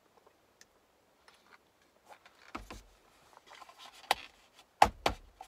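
Handling noise from a paper drink cup and its clear plastic lid being put down: soft rustling and small clicks, then two sharp knocks in quick succession near the end.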